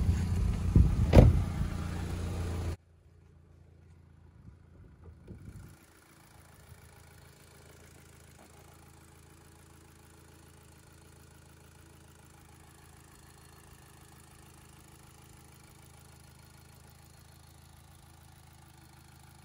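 Mk5 VW Golf GTI's 2.0-litre turbocharged four-cylinder engine idling, freshly restarted after its camshaft adjustment solenoid valve was replaced, with a sharp thump about a second in. The sound cuts off abruptly about three seconds in, leaving a faint steady engine hum.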